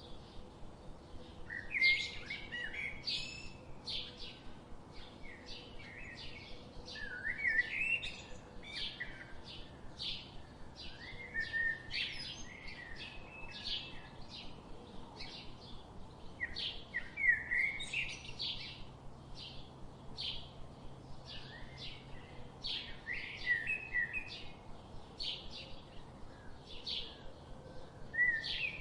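Several small birds chirping and singing: a steady stream of short, high chirps, several a second, with quick rising and falling notes now and then.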